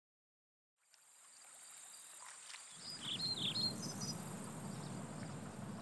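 Dusk outdoor ambience fading in: a steady high drone of insects such as crickets, with a few short chirps about three seconds in and a low rumble coming in beneath.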